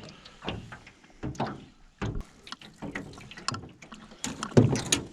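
Irregular splashes and knocks against a small john boat as a hooked fish, a gar, is hauled up on a trot line, with the heaviest thump a little before the end.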